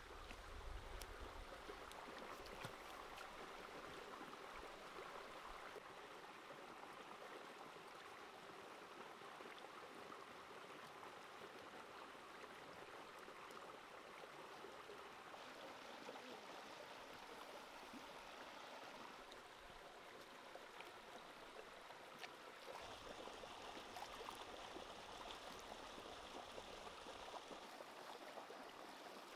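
Faint steady rush of a shallow creek running over stones, with a little more splashing near the end as hands work in the water.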